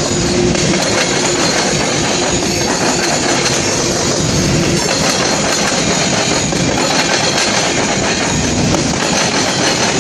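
Covered hopper cars of a freight train rolling past close by: a steady, loud clatter and rumble of steel wheels on the rails, with a faint steady whine through the first half.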